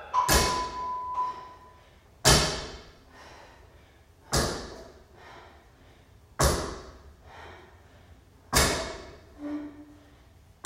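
Loaded barbell with rubber bumper plates set down on a rubber gym floor between deadlift reps. There are five heavy thuds about two seconds apart, each ringing briefly as it dies away.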